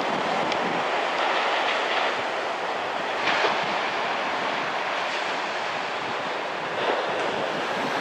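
Steady wash of small surf waves breaking along a sandy beach, with wind buffeting the microphone; the noise swells briefly twice, about three and seven seconds in.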